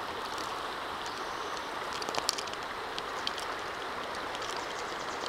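Steady rushing of a shallow, rocky creek running nearby. Scattered small clicks and crunches sound over it, the sharpest a little over two seconds in.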